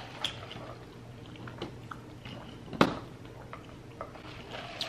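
Close-up eating sounds: chewing and small wet mouth clicks, with one sharp click a little under three seconds in. Near the end comes a drink being sipped through a straw.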